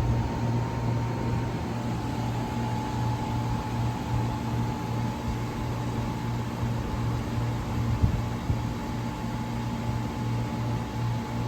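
Steady mechanical hum with a low drone and a fainter higher tone, from a train standing in the station with its equipment running; a small knock about eight seconds in.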